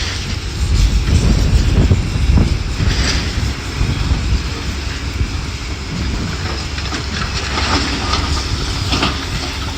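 Heavy demolition machinery working: a steady low rumble with scattered scraping and clanking of debris.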